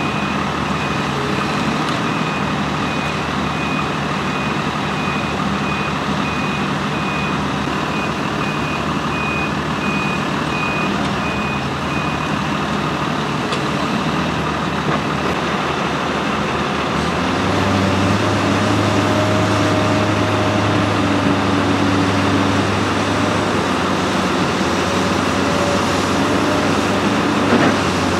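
Heavy diesel engines of an articulated dump truck and a Komatsu PC210 LC tracked excavator running steadily, with a reversing alarm beeping in a steady pulse for the first twelve seconds or so. About two thirds of the way through an engine pulls harder with a deeper, stronger steady note, and a few knocks come near the end.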